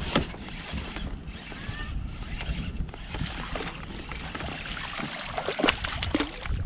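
Water splashing and sharp knocks and rattles around a kayak as a small bass is reeled to the boat and landed, with several louder splashes about five and a half to six seconds in.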